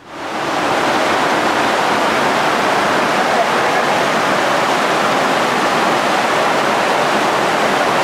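Waterfall pouring over rocks: a steady rush of falling water that fades in during the first second and then holds even.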